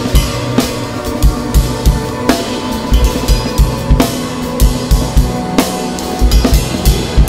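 Acoustic drum kit played freely with sticks: bass drum kicks and snare and cymbal hits at an uneven, busy pace, roughly two to three strokes a second, over steady ringing tones.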